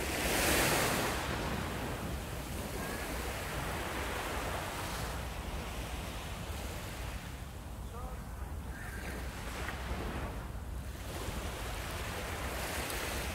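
Surf washing onto a sandy beach, mixed with wind buffeting the microphone; the noise swells louder once, about a second in.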